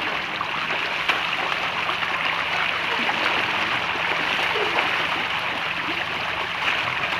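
A large shoal of striped catfish (pla sawai) churning and splashing at the water's surface as they jostle for food: a steady, dense wash of splashing water, shot through with many small slaps and pops.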